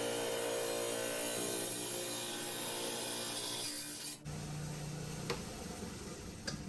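HiTechDiamond slab saw running with a steady motor hum and cutting noise, which cuts off abruptly about four seconds in, leaving a lower hum and a couple of faint clicks.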